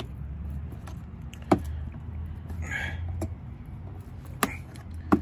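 A hand pulling at the still-clipped plastic fog light trim bezel in the bumper of a 2011 Subaru Outback. There are three sharp clicks and knocks, one about a second and a half in and two near the end, over a steady low rumble.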